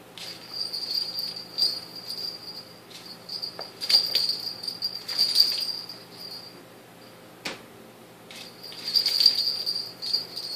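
Small bell in a cat toy jingling in bursts as a kitten bats it around inside a plastic laundry basket, with light rattling clicks and one sharp knock a little past halfway.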